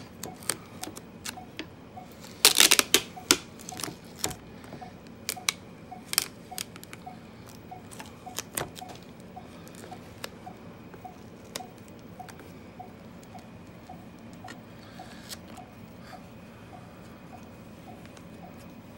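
Self-adhesive vinyl sheet being peeled back off a Koala Pad drawing surface and pressed down again by hand, with crackling and clicking. The loudest burst of crackles comes about two and a half seconds in. Underneath, a faint steady beep repeats a few times a second from the computer running the KoalaPad program.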